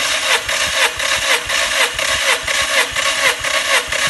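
Starter motor cranking a Skoda Rapid's 1.6 CFNA four-cylinder petrol engine with its plugs out for a compression test, an even chugging about three beats a second as the second cylinder pumps the gauge up toward 15 kg/cm².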